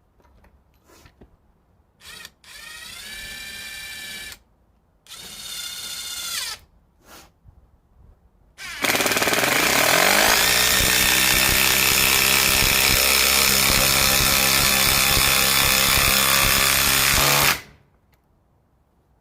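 Ryobi PBLID02 brushless impact driver driving a 5-inch 3/8 lag screw in auto mode. Two short runs with a rising whine come first, then about nine seconds of loud, continuous impact hammering that stops suddenly once the lag is all the way in.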